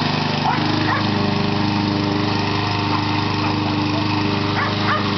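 Lawnmower engine running steadily, with a dog giving a few short barks, two near the start and two near the end.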